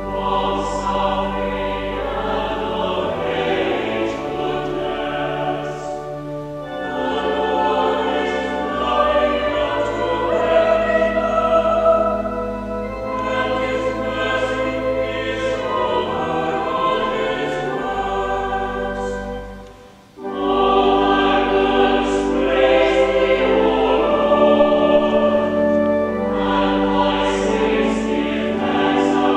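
Church choir singing in parts, phrase after phrase over long held low notes, with a short break about twenty seconds in.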